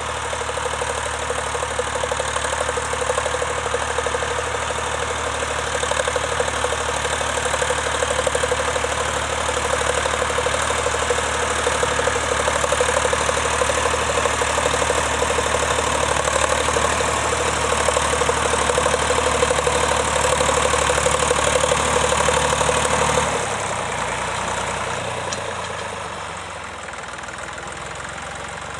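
Vintage tractor engine running steadily and loudly. About three-quarters of the way through, its note drops and the sound falls away to a quieter, lower running.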